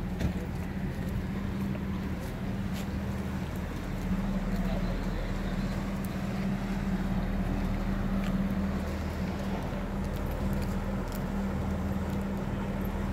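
Boat engine running steadily, an even low drone that holds throughout.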